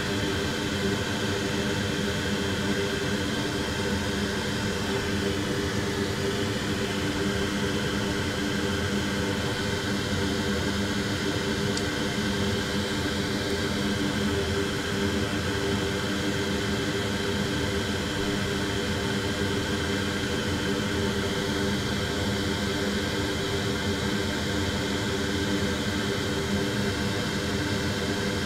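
Electric fan or blower running steadily: an even whir with a low, constant hum.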